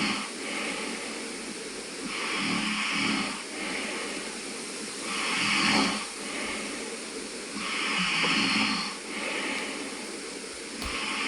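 A person snoring in steady sleep, a breath cycle about every three seconds. Each loud snore is followed by a softer breath, four or five cycles in all.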